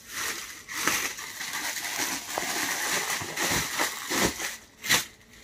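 Crinkling and rustling of a synthetic saree and its clear plastic packaging as they are folded and handled, with a sharp tap near the end.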